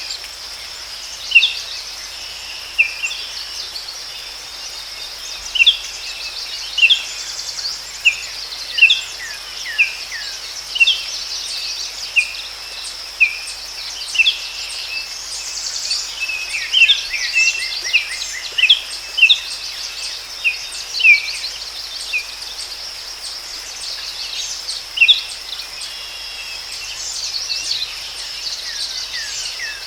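Forest ambience: a steady high-pitched insect drone, with short, sharp bird chirps repeating irregularly about once a second over it.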